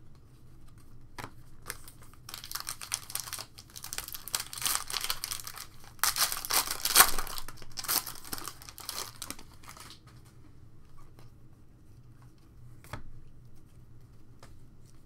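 Foil wrapper of a Panini Prizm baseball card pack being torn open and crinkled, loudest in the middle, then quieter rustling as the cards are slid out, with one short click near the end.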